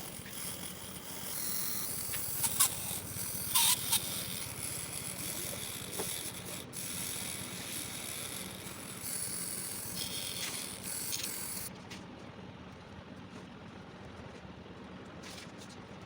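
Small mechanical parts of a homemade hand mini drill clicking, rattling and rubbing as it is worked by hand, with a couple of sharper clicks about three seconds in. The sound gets quieter for the last few seconds.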